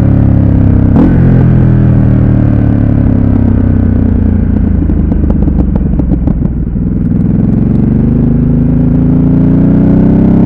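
Ducati Supersport S's 937 cc L-twin engine slowing down, with a sharp click about a second in and crackling on the overrun around the middle. It then accelerates again, rising in pitch toward the end.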